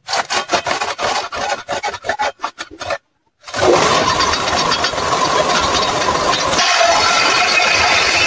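Quick, rapid rasping strokes on wood for about three seconds. Then, after a brief gap, a wooden-framed table saw starts up and runs with a steady whine as a board is fed through it on edge.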